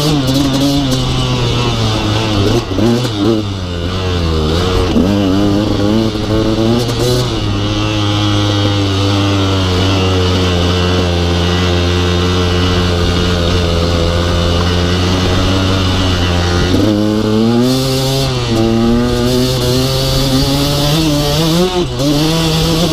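2016 KTM 200 XC-W's two-stroke single-cylinder engine running as the bike is ridden. The revs rise and fall with the throttle for the first several seconds, hold steady through the middle, then rise and dip again near the end.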